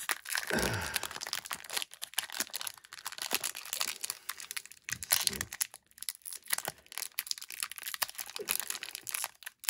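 A Pokémon card booster pack's foil wrapper crinkling and crackling as it is pulled and twisted while being torn open, in dense irregular bursts of crackle with a short tearing rip.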